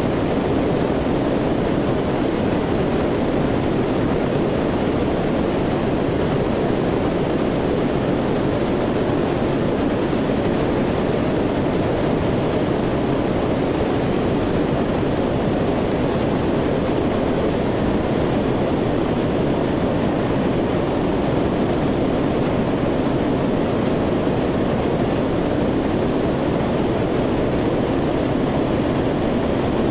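Steady drone of a Lockheed C-130 Hercules's four turboprop engines and propellers in cruise, heard from inside the aircraft.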